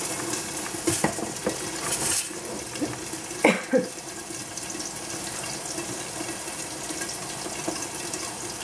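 Steady rushing hiss of gas stove burners and milk heating in a covered stainless-steel saucepan just short of the boil. A few light clicks and knocks come in the first four seconds.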